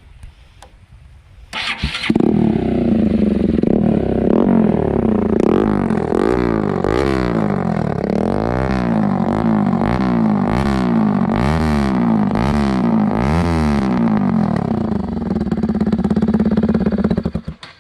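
Bajaj Pulsar NS200 single-cylinder motorcycle engine, with its silencer removed, is started, idles, and is given a quick series of throttle blips, each rising and falling sharply, before idling again and being switched off near the end. The open exhaust sounds very hard.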